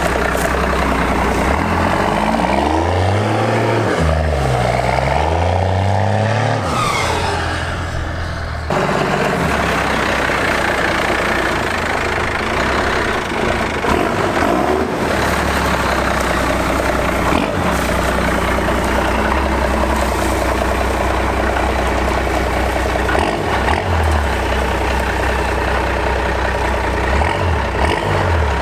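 First-generation Dodge Ram 250's 5.9-litre 12-valve Cummins turbo-diesel running, its revs rising and falling over the first several seconds, then running steadily.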